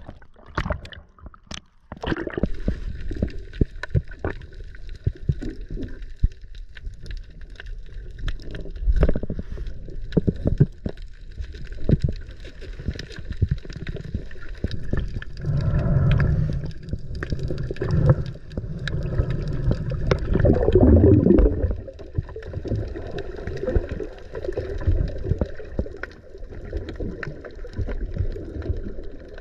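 Muffled underwater gurgling and bubbling with irregular knocks and clicks, heard underwater. Louder gurgling surges come about halfway through and again around two-thirds of the way.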